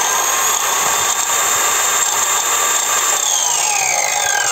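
Parkside Performance PWSAP 40 Li A1 40 V cordless angle grinder with a 230 mm disc running free at full speed with no load; about three-quarters through its whine begins to fall as the disc spins down.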